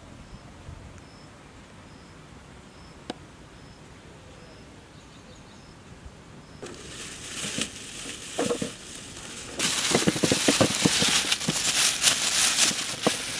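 Rustling and crackling from handling the ingredients, starting about halfway in and growing louder and denser near the end, with a few sharper clicks among it.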